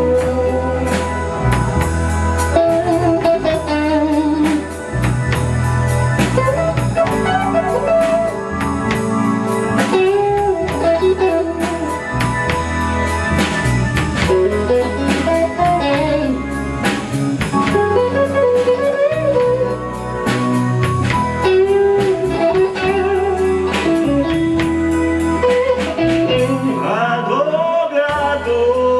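A live band plays a song's instrumental intro: a guitar lead melody with wavering, bent notes over bass and a drum kit keeping a steady beat.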